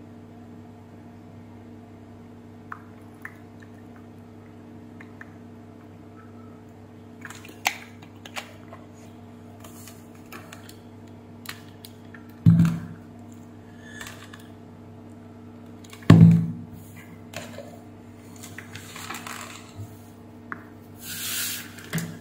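Handling a plastic steam iron freshly filled with water: light plastic clicks and knocks, two heavy thumps of the iron against the workbench a few seconds apart past the middle, and a short hiss near the end, over a steady low hum.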